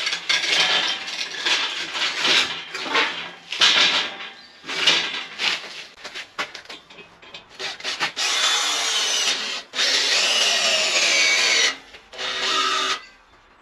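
Cordless drill working on a steel door frame, first in short irregular bursts with scraping, then in two runs of a few seconds each, the second falling in pitch as it slows, and a shorter burst near the end.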